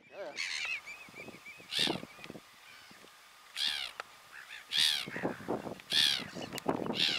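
Black-headed gulls calling: a quick run of short notes at the start, then five loud, drawn-out calls spaced about a second or two apart.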